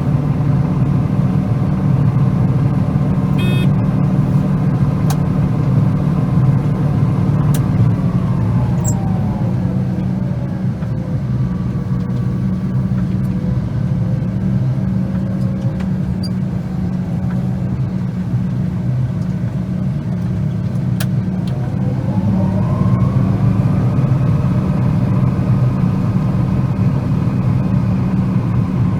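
Combine harvester running steadily while unloading grain from its tank. A whine in the machine drops in pitch about eight seconds in, holds low, then climbs back up a little over twenty seconds in.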